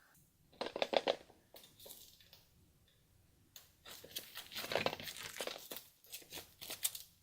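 Foil wrapping on a giant chocolate surprise egg crinkling and tearing as it is unwrapped by hand. A short burst comes about half a second in, then faint rustles, then a longer stretch of crinkling after a pause.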